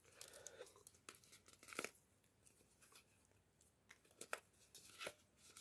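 Small perforated paper tabs being bent and torn out of a cardboard fruit fly trap card: faint paper tearing with a few sharp snaps spread apart, the clearest about two seconds in and two more near the end.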